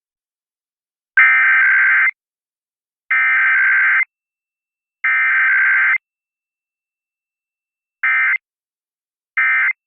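Emergency Alert System SAME digital data tones for a Required Weekly Test: the header burst sent three times, each about a second long and about two seconds apart, then two short end-of-message bursts near the end.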